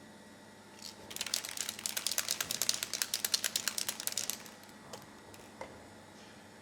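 A fast run of sharp rattling clicks, about ten a second, for roughly three seconds, followed by two single light knocks.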